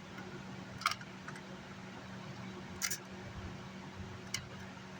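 Three light, sharp clicks about a second and a half apart, from tools and parts handled at a repair bench, over a steady low hum.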